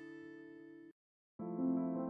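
Background music: a guitar chord rings and fades, cuts off just under a second in, and after a brief gap a new piano tune begins.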